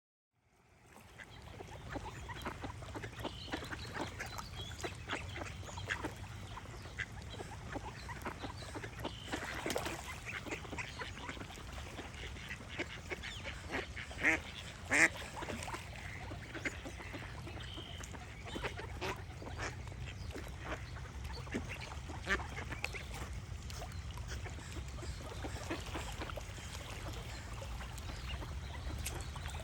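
Ducks quacking over and over, the two loudest calls about halfway through, with small birds singing and a steady low rumble underneath. The sound fades in over the first second or two.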